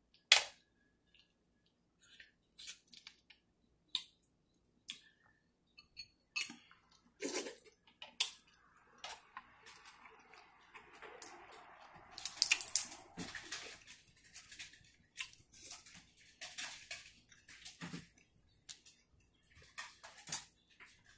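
Cooked crab-leg shells snapped and cracked apart by hand in a run of sharp cracks, the loudest right at the start, with wet sucking and chewing of the meat between them.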